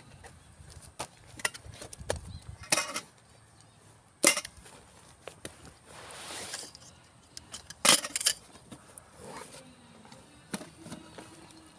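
Camping gear being unpacked from a backpack: rustling and swishing of bags being pulled out and set down, with a few sharp clicks or knocks, the loudest about four seconds in and again near eight seconds.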